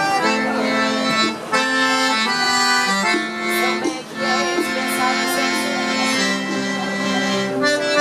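Accordion playing a melody in held notes that step from one to the next, with the band behind it.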